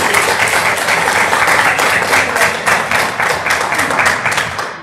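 A small group of people applauding, a dense patter of hand claps that thins out and fades away near the end.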